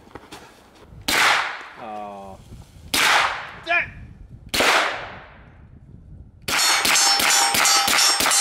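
Hi-Point 10mm carbine fired three single shots about a second and a half apart, each echoing, then a fast string of shots near the end with a metallic ring running through them.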